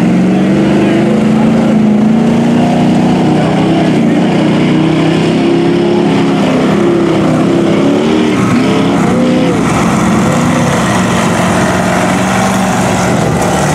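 Supercharged LS V8 (an LQ4 with an LSA supercharger) of a giant Jeep mud truck on tractor tires, revving up and down as it pushes through a water-filled mud pit, with the wash and splash of the tires churning the water.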